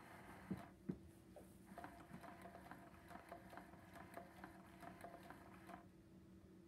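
Battery-powered Pounce cat toy's motor and gears running inside its round housing as it moves the feather wand between holes: a faint hum with a regular clicking about three times a second that stops near the end. Two soft knocks come in the first second.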